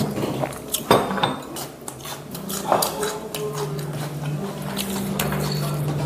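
Tableware clinking during a meal: scattered light clicks of chopsticks, dishes and glasses on the table, with a steady low hum from about two seconds in.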